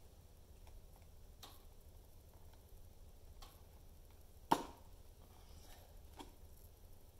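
Quiet handling of a whole orange spiked on a nail: a few soft clicks and taps as fingers grip and press the fruit, with one sharper knock a little past halfway through.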